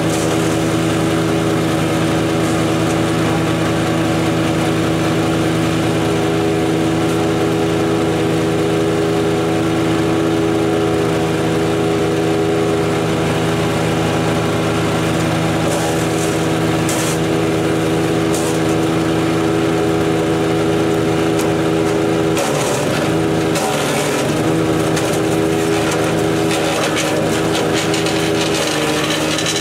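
DK2 Power OPC506 wood chipper's Kohler engine running steadily at speed. Midway a 1-1/4 inch branch is fed in: there are short crackling bursts of wood being chipped, and about 22 seconds in the engine pitch dips and wavers for a few seconds as it takes the load, then settles again.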